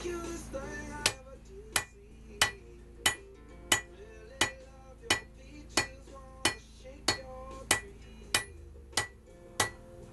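Hand hammer striking a hot damascus steel billet on an anvil with a bright ringing clang: a steady run of about fourteen even blows, roughly one and a half a second, starting about a second in. The billet is being hammered straight before it is cut and folded.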